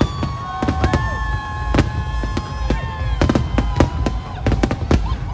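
Fireworks display going off: many sharp bangs in quick, irregular succession, with long whistling tones drawn out over them.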